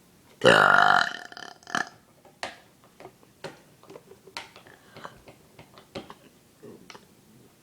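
A girl's deliberate loud burp, lasting under a second, about half a second in, with a much shorter second sound near two seconds. After that only faint scattered clicks.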